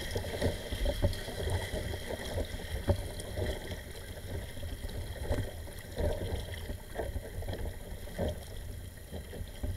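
Double-bladed kayak paddle strokes splashing into the water every second or two, over a low rumble of wind on the microphone.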